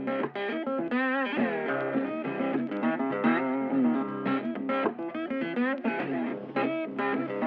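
Background music led by an electric guitar, picking notes with bends over a steady bass line.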